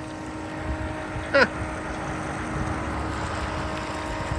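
A vehicle engine runs with a steady hum. About a second and a half in, a short, sharp pitched sound cuts through it.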